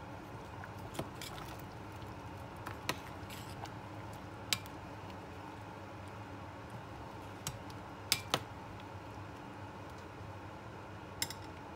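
Metal ladle clinking now and then against a stainless steel pot while stirring a thick curry, about seven sharp knocks spread unevenly, the loudest pair a little past the middle. Under them runs a steady low hum.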